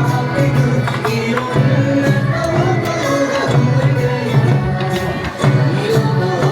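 A bon odori ondo dance song playing: a sung melody over a steady, even percussion beat.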